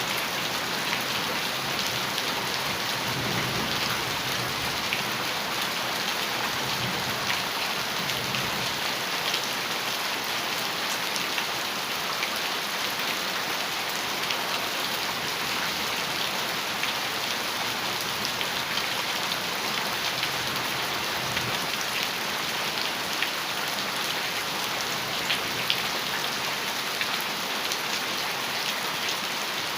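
Heavy rain falling steadily on a metal roof, a dense even hiss with many small sharp drop taps.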